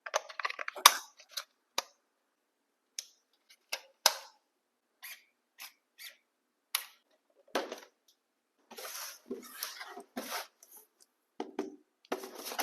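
Packaging of a boxed RC truck being handled and opened: a scatter of sharp clicks and taps, then longer spells of rustling and scraping in the second half.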